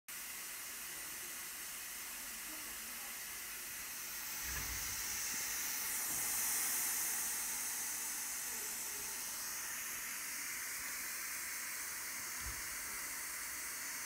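FM static from a software-defined radio receiver (RTL-SDR in CubicSDR) playing through a laptop speaker: a steady hiss from an FM channel with no station on it yet. Two faint low bumps come about four and a half seconds in and near the end.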